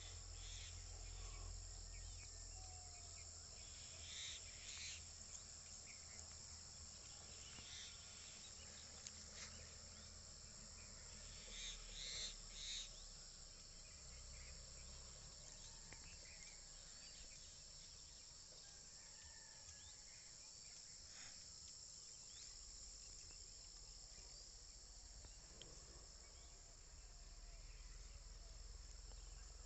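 A steady, high-pitched chorus of insects, with a few short, sharper calls about four seconds in and again around twelve seconds.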